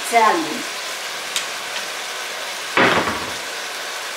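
Ground beef sizzling in a pot on the stove with a steady hiss. Right at the start a voice gives a short falling hum, and about three seconds in there is one loud knock.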